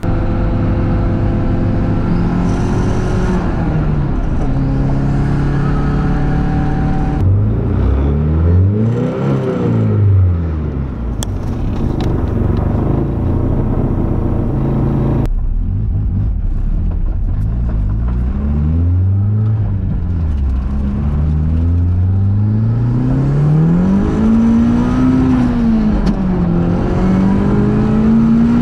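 Mazda Miata's four-cylinder engine running under acceleration, its pitch climbing as it revs and dropping back at each gear change, over and over. The sound jumps abruptly twice where the driving shots are cut together.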